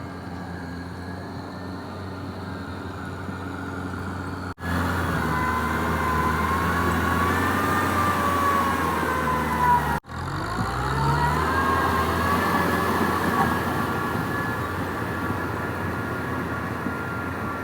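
Kubota M6040SU tractor's diesel engine running steadily under load, with a whine that rises and falls in pitch. The sound cuts off abruptly twice, about 4.5 and 10 seconds in, and is louder after the first break.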